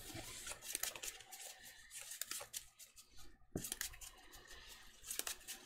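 Faint rustling and light tapping of sleeved trading cards being handled and set down on a tabletop playmat, with a few sharper taps, one about three and a half seconds in.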